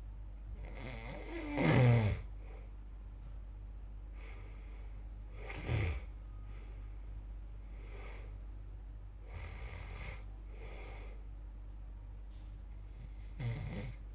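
A person snoring: a run of snoring breaths. The loudest comes about two seconds in with a rattling tone that falls in pitch, a shorter one comes near six seconds and another near the end, with quieter breaths in between.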